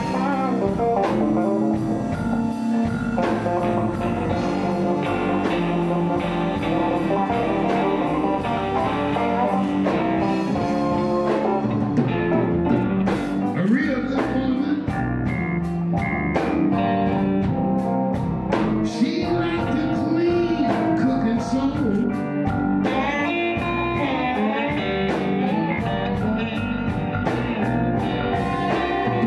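Live electric blues band playing: several electric guitars over a steady drum-kit beat, with bent guitar notes.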